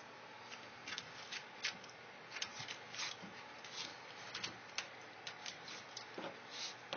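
Scattered light clicks and short scuffling rustles at irregular intervals from a corgi and a cat playing.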